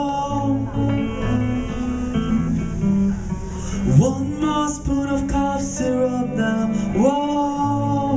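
Live band playing a rock song, guitars strumming under long held notes that slide up into pitch about every three to four seconds, with some wordless singing.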